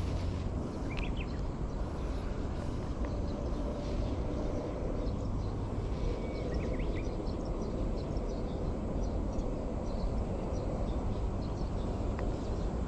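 Steady outdoor background noise with a low rumble, and faint short bird chirps now and then.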